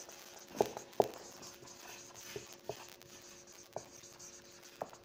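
Marker pen writing on a whiteboard: a run of short, irregular strokes and taps of the tip against the board.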